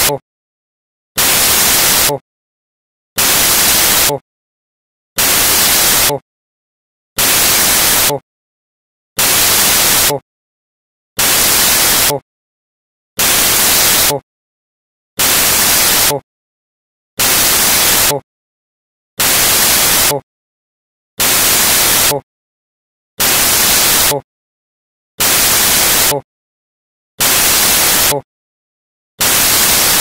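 Loud bursts of static hiss, each about a second long, repeating evenly about every two seconds with dead silence between. This is a digital glitch in the audio track, not a sound from the scene.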